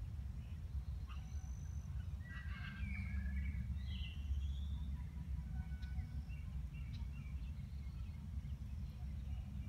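Outdoor ambience: a steady low rumble with a few faint bird chirps and short whistles, most of them bunched about two to five seconds in.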